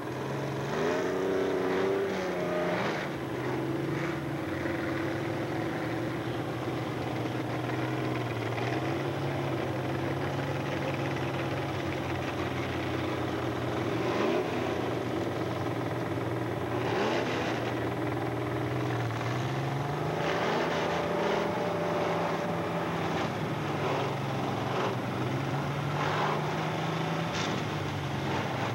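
Off-road race trucks' engines running and revving on a dirt drag strip. The engine note rises sharply about a second in, and again about two-thirds of the way through and near the end.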